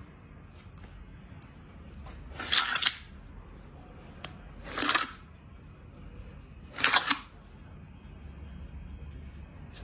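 Slime being pressed and squeezed by hand, giving three short crackling, squishing bursts about two seconds apart.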